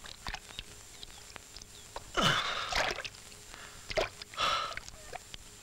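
River water splashing and sloshing around a wooden ferry boat as passengers step aboard, in a few short irregular splashes: one about two seconds in and two more around the four-second mark.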